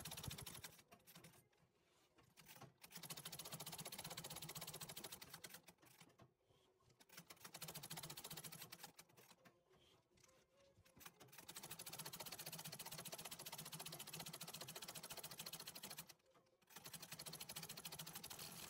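Antique treadle sewing machine doing free-motion embroidery: a faint, fast, even clatter of needle stitching that stops and restarts four times, each pause lasting a second or two.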